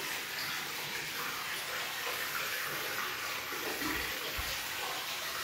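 Water running steadily, an even rushing hiss.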